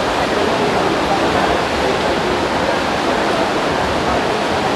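Steady wash of water noise from swimmers splashing through their freestyle strokes in a pool race.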